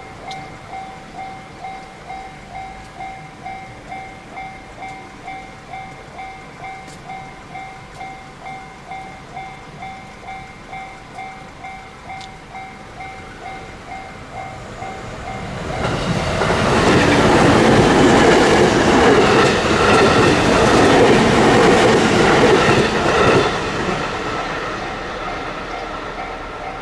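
Japanese railroad crossing's electronic warning bell ringing in a steady repeating ding. About 15 seconds in, a train passes over the crossing: a loud rush and clatter of wheels on rails for about eight seconds, then fading as it moves away, with the bell still ringing.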